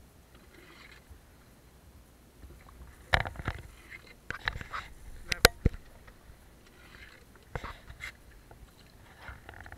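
Hollow wooden knocks and clunks on a wooden canoe's hull: a cluster of sharp knocks about three to six seconds in, the loudest near five and a half seconds, and two more near eight seconds.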